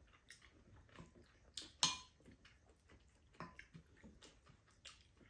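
Quiet eating sounds at a table: spoons and chopsticks tapping ceramic bowls and chewing, about eight soft, scattered clicks, the sharpest a little under two seconds in.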